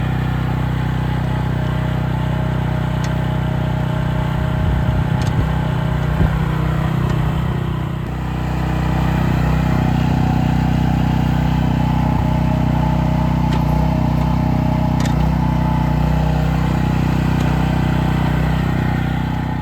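Small engine of a 0.8-ton, 9.5-horsepower Ducar mini excavator running steadily, with a brief unsteady patch about five seconds in and a dip in level about eight seconds in, after which it runs a little louder.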